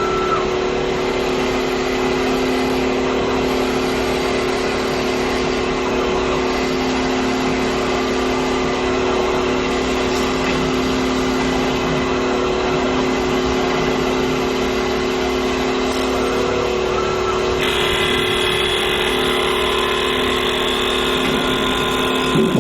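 CNC wood lathe running: a steady machine hum with several held tones over a constant noise, changing in character abruptly about three-quarters of the way through.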